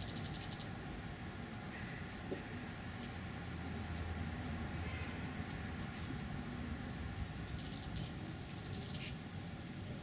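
Dark-eyed juncos (Oregon race) giving short, sharp high call notes: scattered single chips, plus two quick ticking series, one at the start and one near the end. Underneath runs a steady low background rumble.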